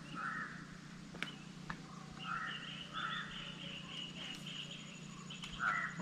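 Birds calling: a few short harsh calls, one just after the start and two close together about two and a half seconds in, with a higher, thinner chattering call through the middle. Two faint clicks about a second in.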